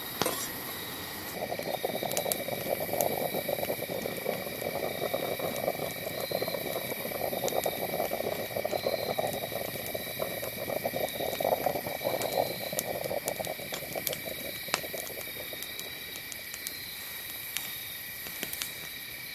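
Stainless-steel percolator coffee pot bubbling and gurgling over a canister gas stove, starting about a second in and dying down after about twelve seconds, with a few sharp clicks from handling the pot and stove. Insects trill steadily in the background.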